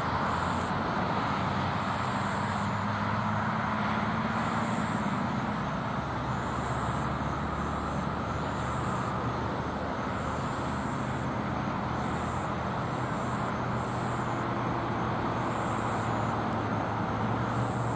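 Steady drone of distant engines, with low hum tones that slowly shift in pitch.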